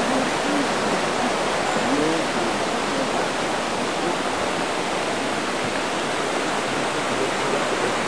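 Rainforest creek water rushing over rocks: a steady, even hiss. Faint voices show through it in the first couple of seconds.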